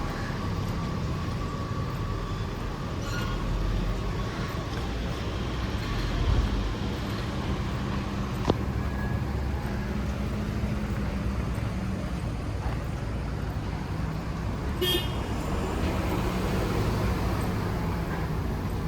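Street traffic: a steady rumble of passing cars and engines, with a single sharp click about halfway through and a short car horn toot near the end.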